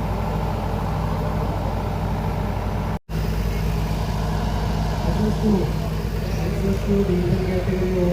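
Off-road vehicle engine running steadily, with the sound cutting out for a moment about three seconds in. Over the last few seconds a higher, wavering sound rises and falls over the engine.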